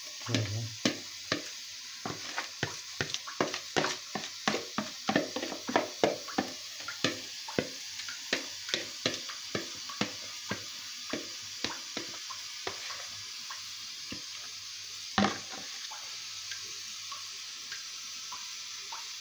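A spoon scraping and tapping against the bowl and tray as thick cake batter is scraped out into an oven tray: a quick run of sharp clicks, two or three a second, that thins out after about thirteen seconds, with one louder knock about fifteen seconds in.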